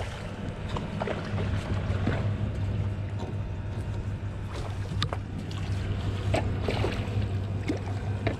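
Boat motor running steadily at low speed with a constant low hum, with scattered small clicks and knocks.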